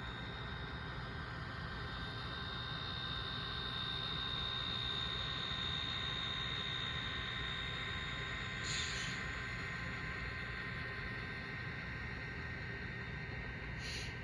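HO scale model diesel locomotive running, a steady rumble with a high whine that swells in the middle. Short hissing bursts come about nine seconds in and twice near the end.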